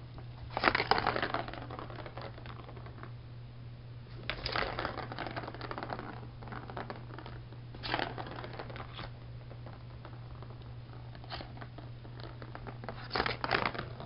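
A cat playing with a Turbo Track, the plastic circular cat toy with a ball inside: five short spells of clattering and scratching, loudest about a second in and again near the end.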